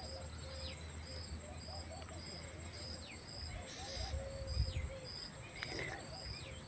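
Faint outdoor ambience of birds and insects: a short high note repeated about twice a second, scattered chirps, and a steady high insect whine. A low rumble comes in about four seconds in.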